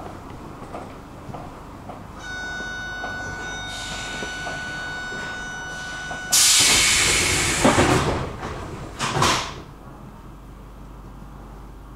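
A train's door warning tone sounds steadily for about four seconds, starting about two seconds in. Then the pneumatic doors close with a loud hiss of air and a couple of sharp thumps, and the train's low rumble carries on underneath.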